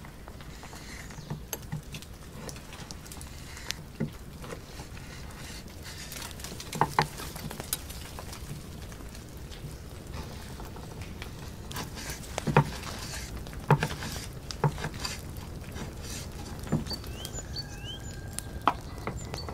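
A chef's knife cutting raw pancetta-wrapped steak on a wooden cutting board, with irregular knocks as the blade meets the board and a few louder ones in the second half.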